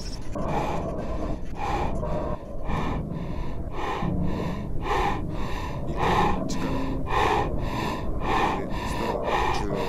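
A man breathing hard while running, loud panting breaths coming evenly about twice a second, over a steady low rumble.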